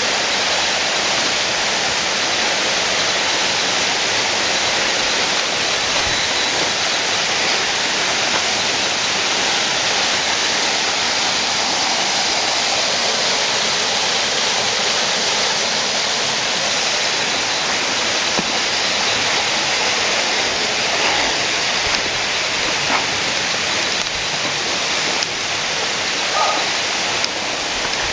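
Steady rush of water from a small forest waterfall and stream.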